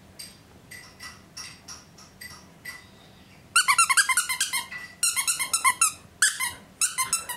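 An 8-week-old Airedale puppy whimpering in high-pitched squeaks: faint squeaks about twice a second at first, then from about halfway a loud, rapid run of squeaky whines and chirps in several bursts.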